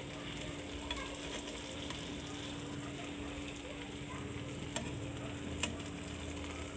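Marinated chicken tandoori leg pieces sizzling steadily in oil in a nonstick frying pan as they brown over low heat. A few sharp clicks of metal tongs sound against the pieces and pan as they are turned, two of them clear near the end.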